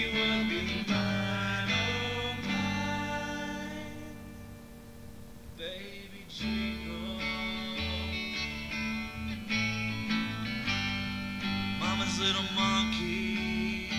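Country-style backing music: plucked and strummed guitar over a steady bass line, briefly thinning out midway before picking back up.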